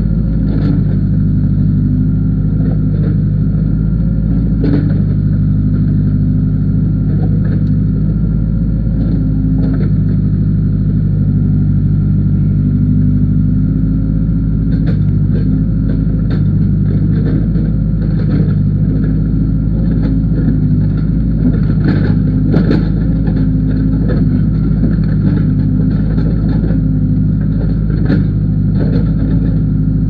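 Case backhoe loader's diesel engine running steadily, heard from the operator's seat while the backhoe digs a trench. Scattered knocks and clanks from the bucket and linkage come through the engine sound, more often in the second half.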